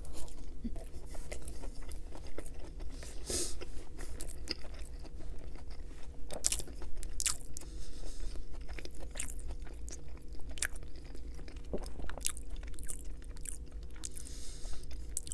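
Close-miked mouth sounds of a sushi roll with a crispy coating being bitten and chewed: a bite at the start, then moist, crunchy chewing with many small irregular clicks and crackles.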